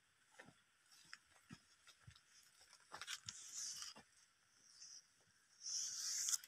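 Faint crackling and rustling of footsteps and brushing through dry oil palm fronds and leaf litter: scattered light crunches, with two louder rustling stretches about three and a half and six seconds in.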